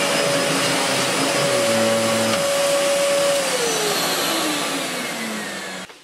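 Miele S7 upright vacuum cleaner running steadily, then switched off about halfway through, its motor whine falling in pitch as it winds down. The sound cuts off abruptly just before the end.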